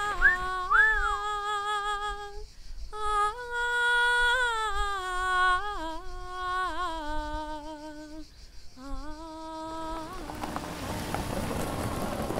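A man humming a slow tune: long held notes that slide up and down between pitches, with a wobble on some notes. About ten seconds in the tune stops and a steady rushing noise takes over.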